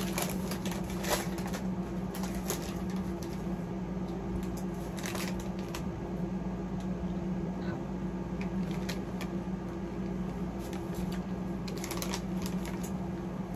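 Plastic snack wrapper crinkling and rustling as it is opened and handled, in short scattered crackles that come thickest near the start and again near the end, over a steady low hum.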